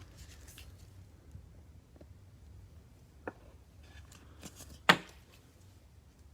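Quiet handling of trading cards on a table, with a few light clicks and one sharp tap a little before five seconds in.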